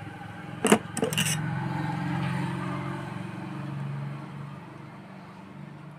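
Sharp metallic clicks as a metal clamp is fitted over a new IGBT on a welding-inverter circuit board, then a low motor-like hum that swells and fades over about three seconds.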